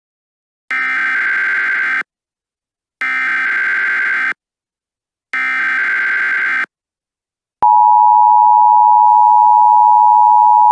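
Emergency Alert System header: three short bursts of SAME digital data tones, about a second apart. They are followed by the EAS two-tone attention signal, which starts about two-thirds of the way in and holds steady and loud.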